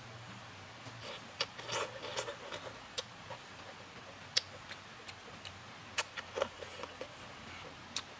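Close-up eating sounds: a person slurping sauced mushroom strips off chopsticks, with wet lip smacks and chewing clicks scattered through, and a longer slurp about two seconds in.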